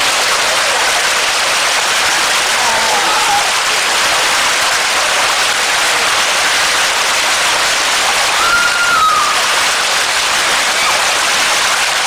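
Floodwater gushing up out of an overflowing storm drain and rushing across a flooded road, a loud steady rush of water.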